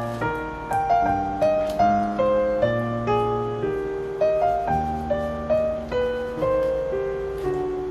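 Background piano music: a gentle melody of single notes, about two a second, each note fading after it is struck.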